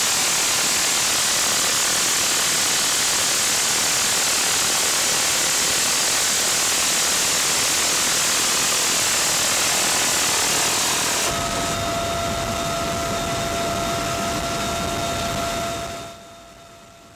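Open-door cabin noise of a UH-1Y Venom helicopter in flight: a loud, steady rush of wind and rotor noise. About eleven seconds in it changes to a lower rumble with a steady high whine, then fades out near the end.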